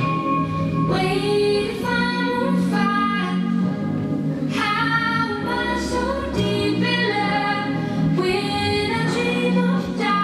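Music: a voice singing slow, held notes that glide from one pitch to the next, over a steady low accompaniment.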